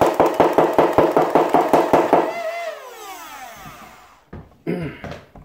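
Motorised Nerf Hurricane blaster firing foam darts from its magazine in a rapid full-auto burst, about seven shots a second, over a steady motor whine. The shots stop after about two seconds and the whine falls in pitch and dies away as the motor spins down.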